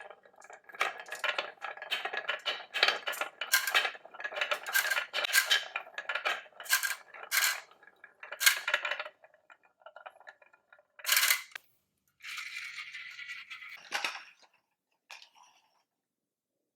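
Marbles rolling down a marble run track, clicking and clinking against the track and each other in a dense run of clacks that thins out after about nine seconds, with a short steady rolling rush a little later before the sound stops.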